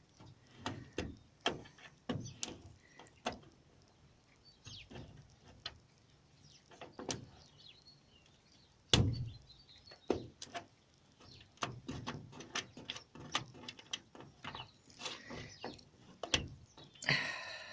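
Irregular clicks, taps and scrapes as a bolt is worked by hand through a hinge, turned in and out to free it, with one louder knock about nine seconds in.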